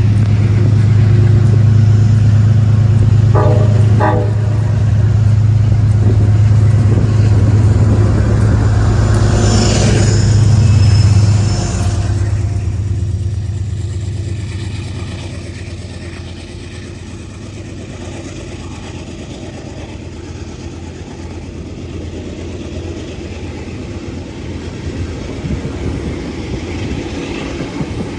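A train running close by with a loud, steady low hum that cuts back about twelve seconds in and fades away, leaving a quieter rumble; rail clicks pick up near the end.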